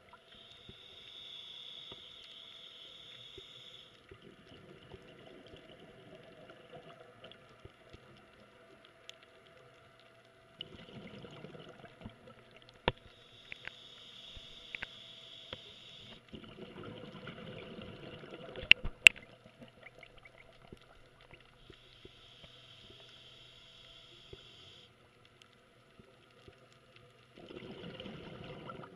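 Scuba diver breathing through a regulator, heard underwater: a hiss of inhaling lasting a few seconds, then a short burst of exhaled bubbles, repeated about three times. A faint steady hum runs underneath, and a few sharp clicks come, the loudest about 19 seconds in.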